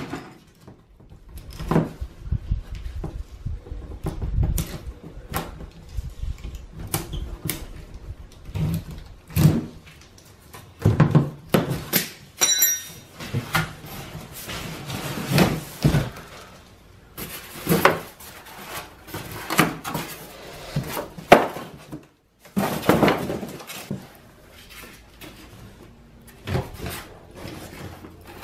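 Irregular thumps, knocks and scraping as a heavy cardboard box is handled: a ratchet strap is undone and the box is tipped and opened. Steel wheel dollies clunk as they are lifted out of it, with a brief metallic ring about twelve seconds in.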